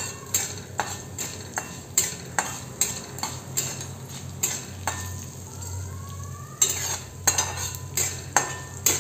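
Metal spatula scraping and tapping the inside of a kadhai while stirring whole coriander seeds and cumin as they roast, at about two strokes a second with a short pause midway, over a faint sizzle.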